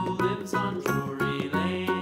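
Instrumental children's background music with a steady rhythm.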